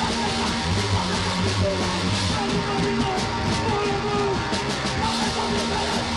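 Loud, dense heavy rock music with distorted electric guitar, playing without a break.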